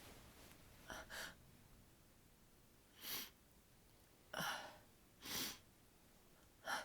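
A person's sharp gasping breaths and sneezes, muffled into a down comforter: several short bursts a second or so apart, the sign of a sensitive, tickling nose after being out in freezing weather.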